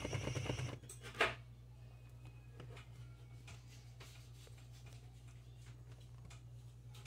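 Music cuts off suddenly under a second in. Then comes a single sharp click, and after it a low steady hum with a few faint ticks.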